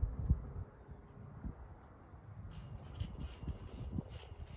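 Crickets chirping in a steady rhythm, about two chirps a second over a continuous high insect trill, with scattered low thumps and rumble underneath, the loudest just after the start.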